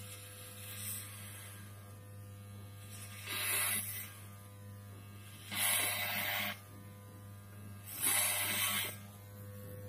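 Corded electric hair clippers buzzing steadily. Three louder, hissier stretches of about a second each come roughly three, five and a half, and eight seconds in, as the blades cut through hair.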